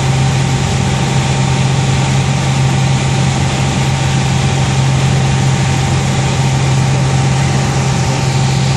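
Piper Saratoga's six-cylinder Lycoming engine and propeller droning steadily in flight, heard inside the cabin: a strong low hum from the propeller over an even rush of air noise.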